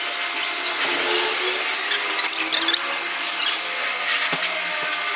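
Jet of water from a pressure-washer spray gun hissing steadily as it blasts a Suzuki Ertiga's removed floor carpet clean, with a wavering whine from the washer running underneath.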